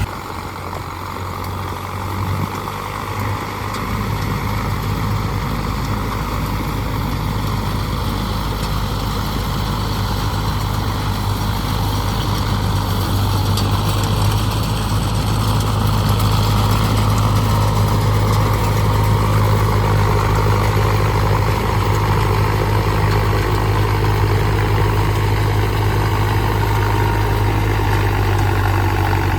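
Tractor diesel engine running a Nippy45 mini combine harvester attachment, a steady low hum that builds over the first few seconds and then holds even.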